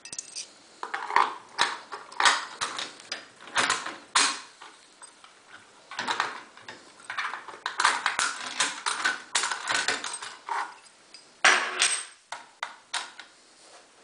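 Irregular metallic clicks, clinks and scrapes of a lock-picking tool being worked in the keyhole of an Auno 6+6 lever lock, the steel levers and tool clattering against each other.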